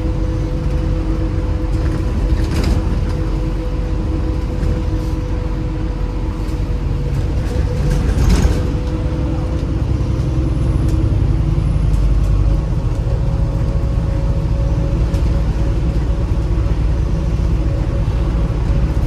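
Inside a MAZ-203 city bus under way: a steady low engine and road rumble with a thin whine, and two brief rattles or jolts about three and eight seconds in.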